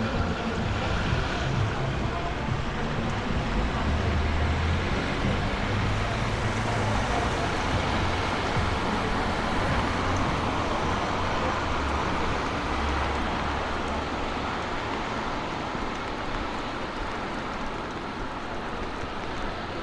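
Steady rain and the hiss of traffic on a wet road, with gusts of wind buffeting the microphone in low rumbles.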